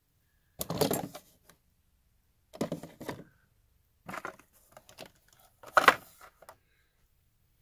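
Handling noise from plastic blister-carded and loose die-cast toy cars being moved by hand: a few short rustles and clicks, the loudest about six seconds in.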